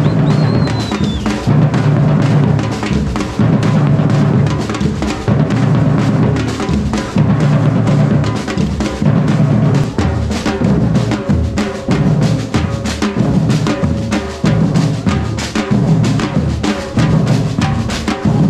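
Batucada drum ensemble playing loudly: many surdo bass drums and smaller drums struck with sticks and mallets in a steady, driving rhythm.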